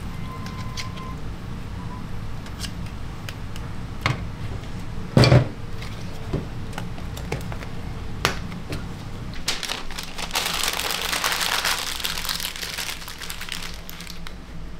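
Snack-bar kitchen work: scattered clicks and knocks with one loud thump about five seconds in, then a few seconds of hissing or crackling toward the end, over a steady low hum.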